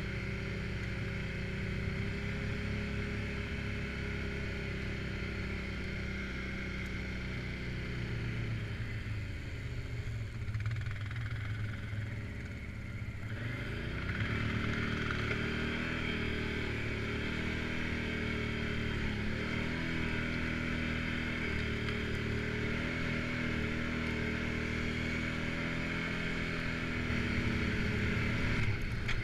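Suzuki KingQuad 750 AXi ATV's single-cylinder engine running under way. It eases off about ten seconds in, then picks up again sharply a few seconds later and holds a steady pace.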